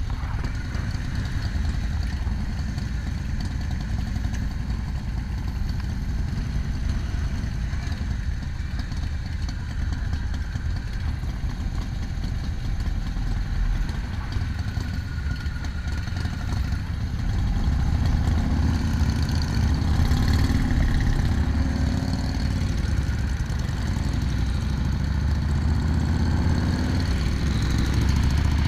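Motorcycle engines idling with a steady low rumble; about two-thirds of the way through they rev up as the group pulls away and rides off.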